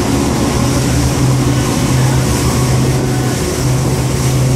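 Outboard engines of a Yellowfin center-console boat running at high speed, a steady drone, with wind and water rushing past.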